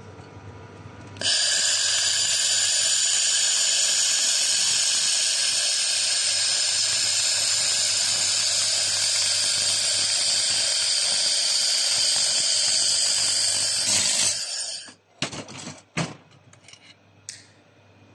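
A 2 kW water-cooled welding machine with dual wire feed running a weld: a loud, steady, high-pitched hiss starts suddenly about a second in and cuts off about fourteen seconds in. A few short knocks follow.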